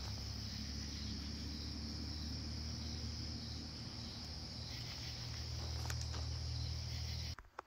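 Night insect chorus of crickets: a steady high trill over a low steady hum, cut off abruptly near the end.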